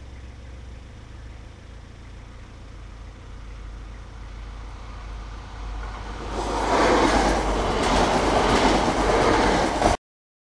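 Regional passenger train approaching, a low rumble growing steadily, then passing close by with loud wheel-on-rail noise from about six seconds in. The sound cuts off abruptly near the end.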